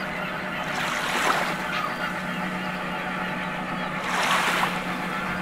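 Tugboat engine running with a steady low hum, and water washing in twice, briefly, about a second in and about four seconds in.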